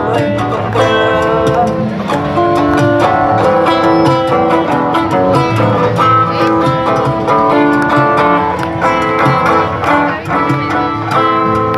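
Live chacarera instrumental break: an acoustic guitar strumming and plucking in the dance's lilting rhythm, with a drum beating along, between sung verses.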